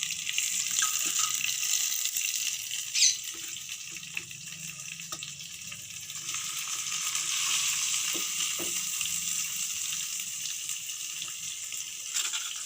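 Tandoori-marinated chicken leg pieces sizzling in shallow oil on a tawa, a steady hiss that swells from about six seconds in. A sharp knock sounds about three seconds in, with a few fainter knocks later.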